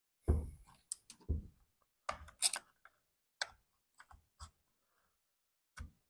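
Irregular clicks and knocks of hard plastic and metal parts being worked by hand at a Husqvarna 455 Rancher chainsaw's carburetor and throttle linkage, as the linkage pins are popped out of their rubber boots. About ten in all, the loudest near the start.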